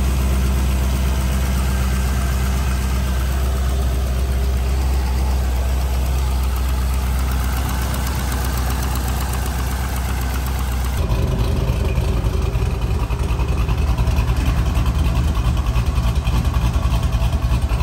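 C5 Corvette's LS V8 with an aftermarket camshaft, idling steadily, with an exhaust leak from an exhaust gasket that is shot. About 11 seconds in, the sound becomes the exhaust note from the tailpipes, with an even, quick pulsing.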